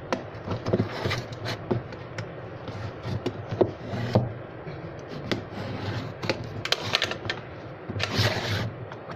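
Hands handling and turning a cardboard smartphone box, making scattered small clicks, taps and scrapes against the box, with a longer scratchy rasp about eight seconds in.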